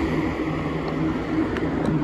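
Wind rumbling on the microphone of a rider moving along a road, with a steady low hum and road noise underneath.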